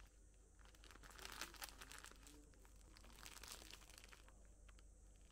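Faint crinkling and rustling of merchandise packaging being handled, in two spells: one about a second in and one around three seconds in.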